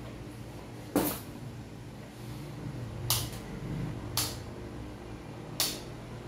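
Steady hum of an electric fan, with four sharp clacks or knocks spread a second or so apart. The first is the loudest.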